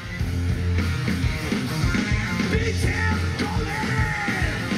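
Rock music with singing played loud over an outdoor concert stage's PA system, with a heavy steady bass line.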